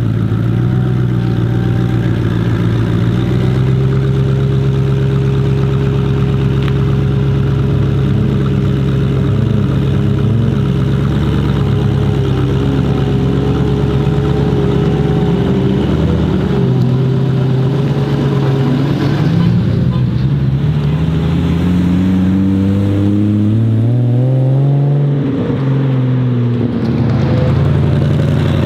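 Koenigsegg Regera's twin-turbo V8 running steadily at low speed, then about two-thirds of the way in its pitch climbs for several seconds and drops back again near the end.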